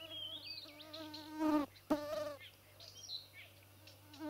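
A flying insect buzzing close to the microphone: a steady drone that swells loudest about a second and a half in, breaks off, and comes back briefly just after. Small birds chirp in the background.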